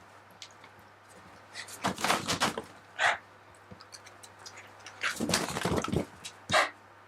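Scattered clicks and knocks in a few short clusters, the loudest group about five seconds in, over quiet room tone; no hair dryer is running.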